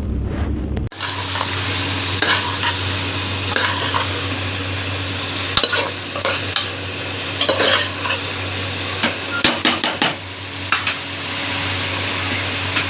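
A spoon stirring and scraping in a pan of sizzling onion-tomato masala: a steady frying hiss with irregular clicks and scrapes against the pan. It starts abruptly about a second in, cutting off a low rumble.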